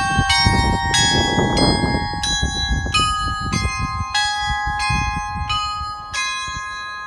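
Tuned bells ringing a slow melody, the hourly chime sounding 11 o'clock. Each note is struck and rings on under the next, about two notes a second.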